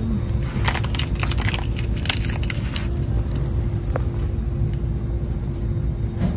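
Steady low rumble of a car in motion heard from inside the cabin, with a constant hum. Light metallic jingling and clicking runs through the first three seconds, with a few stray ticks after.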